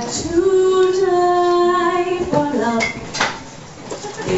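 A woman singing live, holding one long note for about two seconds before her voice moves on. A short sharp noise comes about three seconds in, and then it goes quieter for about a second.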